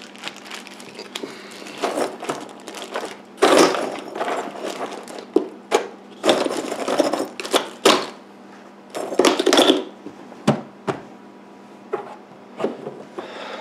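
A plastic bag of fish fillets rustling against ice as it is packed into a small plastic cooler, in three noisy stretches, then sharp clicks as the cooler's plastic lid is pressed shut near the end. A steady low hum runs underneath.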